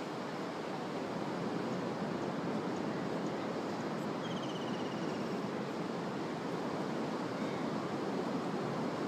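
Steady rush of ocean surf breaking on the beach. About four seconds in, a faint, high, rapid trill of short notes rises above it for about a second.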